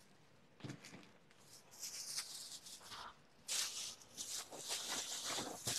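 Faint rustling and crinkling of brown paper grocery bags being rummaged through, in short irregular stretches that grow stronger over the second half.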